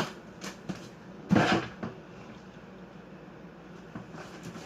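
Kitchen cupboard and a container being handled: a few light clicks, then a louder knock about a second and a half in.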